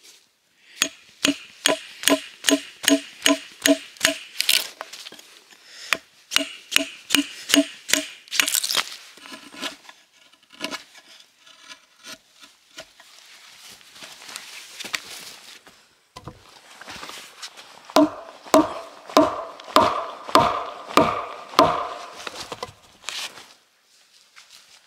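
Rapid blows of a tool striking wood, about three a second, each with a short ringing knock. They come in several runs with a few scattered hits between, and the last run near the end is deeper.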